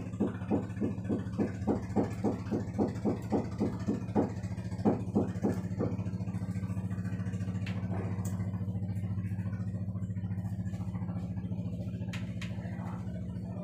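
A steady low machine hum, like an engine or motor running, with regular pulses about three times a second for the first six seconds.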